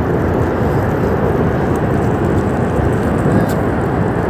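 Loud, steady rushing rumble of a glacier-burst flash flood, a torrent of water, mud and debris surging down the river valley.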